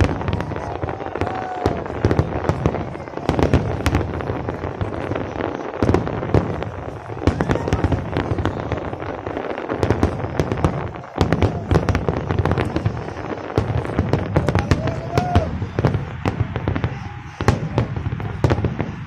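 Fireworks display: a dense, continuous run of bangs and crackling, several bursts a second, with a few short whistling glides.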